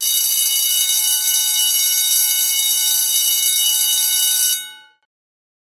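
High school bell ringing continuously for about four and a half seconds, starting abruptly, then dying away quickly.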